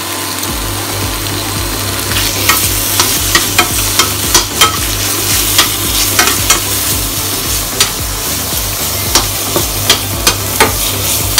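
Bacon sizzling and crackling in hot oil in a pan, stirred and turned with a metal spoon. A steady frying hiss with sharp pops and clicks scattered through it.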